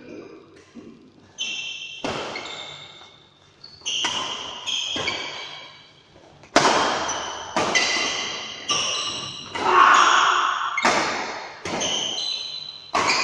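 Badminton rackets striking the shuttlecock in a fast doubles rally: sharp hits about once a second, each followed by a short high ring that dies away, with the hardest hits a little past halfway.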